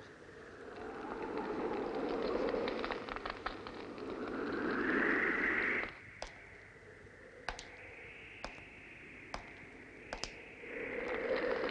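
A swelling rushing noise that cuts off suddenly about halfway through, then slow footsteps of hard-soled shoes on wooden stairs, sharp taps about a second apart, two close together near the end.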